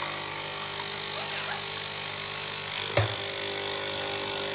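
Capsule espresso machine's pump buzzing steadily as it brews coffee into a mug. A single sharp knock sounds about three seconds in.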